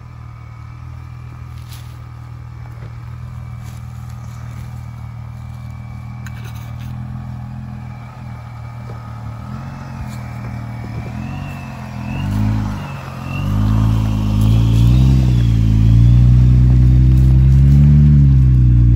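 Supercharged Jeep Wrangler engine, fitted with a Ripp supercharger, running as it crawls down a rocky trail toward the microphone. It grows louder, and its pitch rises and falls with the throttle in the last third. A high whine follows the revs, over light crunching from the tyres on rock.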